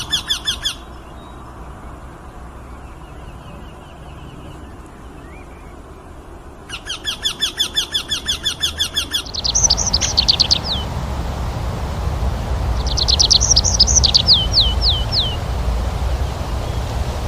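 Birds singing. A Eurasian wryneck gives a fast, even run of repeated call notes, fading out within the first second and coming back for about two seconds near the middle. Then, over a louder background hiss, a second kind of bird sings two bursts of quick falling notes.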